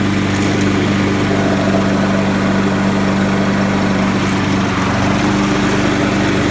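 Briggs & Stratton 625 series 150 cc engine on a Craftsman self-propelled walk-behind mower, running steadily with a constant hum while the rear-wheel self-propel drive pulls the mower along.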